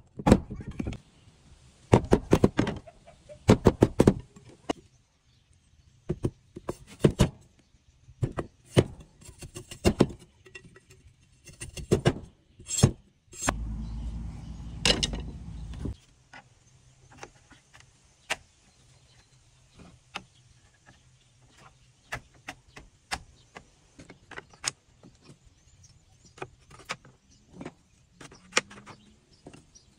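A machete chops a green bamboo pole standing on a wooden log, giving a run of sharp strikes in the first few seconds. After that come scattered light knocks and clicks, with a rough noisy stretch of a couple of seconds near the middle.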